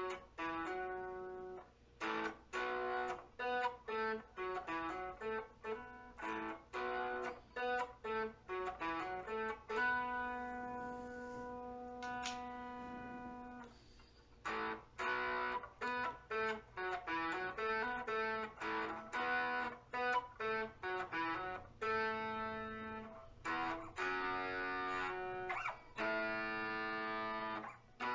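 Electric guitar through a small 5-watt amp driven by a NUX Horseman overdrive pedal, playing quick picked single-note lines, with a long sustained note about ten seconds in and held notes near the end.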